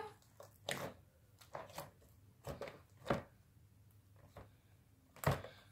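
Freshly opened slime: faint, scattered pops and clicks from air bubbles at its surface, about eight spread over a few seconds.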